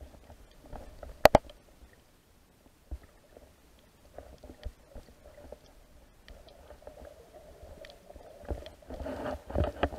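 Muffled underwater ambience picked up by a submerged camera: low rumbling water movement with scattered faint clicks and knocks. A sharp double click about a second in is the loudest sound, and the rumbling and knocking grow louder near the end.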